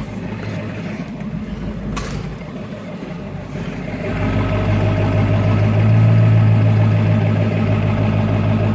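Ford F-250 pickup's engine running steadily, growing louder about four seconds in and then holding a steady drone.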